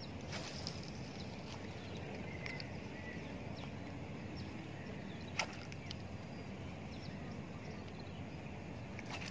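Steady outdoor lakeside background noise with faint, scattered bird chirps and one sharp click about five seconds in.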